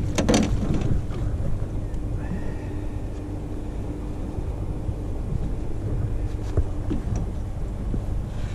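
Wind rumbling on the microphone aboard a small boat, with a few sharp knocks just after the start and a faint steady hum through the middle.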